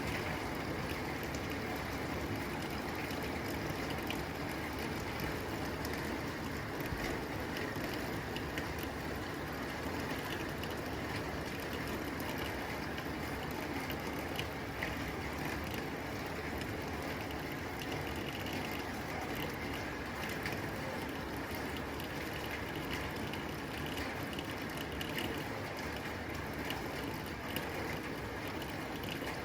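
Steady rain drumming on a tin roof: a dense, even patter of drops on metal, without pause or change.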